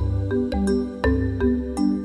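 Background music: a steady beat of short, bright notes over a low bass line.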